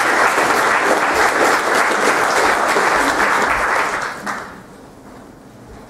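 Audience applauding at the end of a talk, the clapping dying away about four and a half seconds in.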